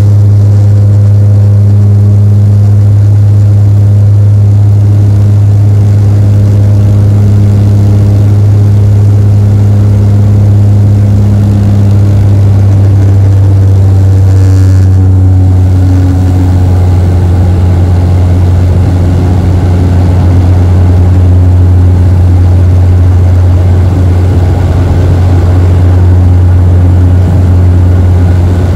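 Cabin drone of a Bombardier DHC8-Q400's Pratt & Whitney PW150A turboprop and six-blade propeller, heard through the cabin window seat during the climb. A loud, steady low hum with a stack of steady tones above it, some of the upper tones shifting slightly about halfway through.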